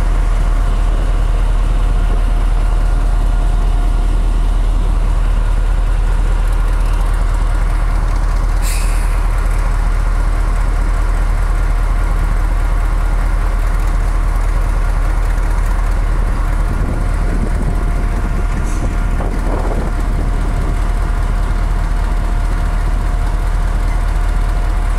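British Rail Class 35 Hymek diesel-hydraulic locomotive's Maybach MD870 V16 engine idling steadily, a deep drone with a steady whine over it. A brief sharp hiss comes about nine seconds in, and a fainter one near nineteen seconds.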